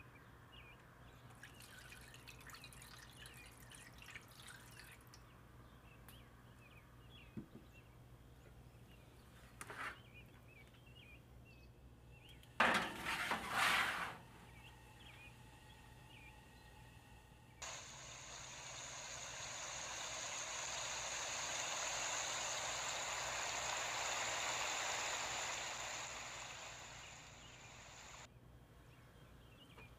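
A metal roasting pan clattering on the oven rack as it is slid in, about halfway through. A few seconds later comes a steady rushing noise like running water, which lasts about ten seconds, swelling and then fading. Faint bird chirps sound throughout.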